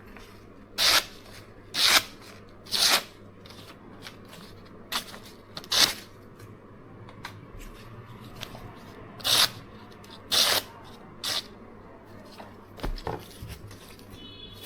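A freshly sharpened knife, edged on a coarse roughly 100-grit stone, slicing through paper in a series of short hissing strokes, mostly about a second apart with a pause in the middle.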